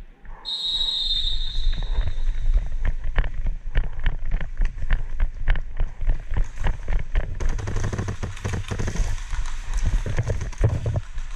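Running footsteps on a concrete floor with loose gear rattling, quick irregular knocks that get busier in the second half. A shrill high tone sounds for about a second just after the start.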